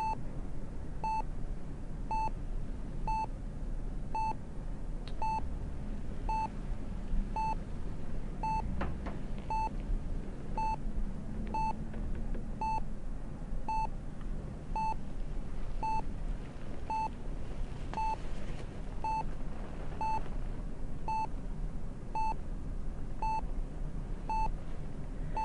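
Bedside heart monitor beeping steadily, a little under once a second, over a low steady hum.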